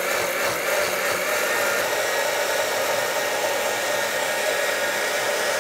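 Countertop blender running at a steady speed, puréeing a thick liquid mix of brined chili peppers, garlic and vinegar into hot sauce; an even whir with a constant hum.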